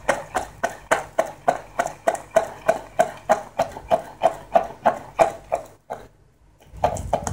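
Wooden pestle pounding a moist paste of nuts and seeds in a stone mortar. It knocks steadily about three to four times a second, stops for about a second near the end, then starts again.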